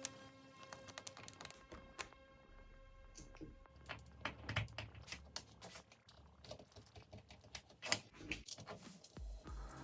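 Irregular light clicks and taps of small hard parts being handled, with a faint steady hum in the first few seconds. Music comes in near the end.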